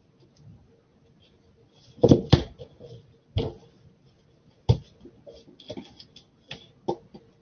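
A series of irregular knocks and clicks, the loudest a close pair about two seconds in, over a faint steady hum.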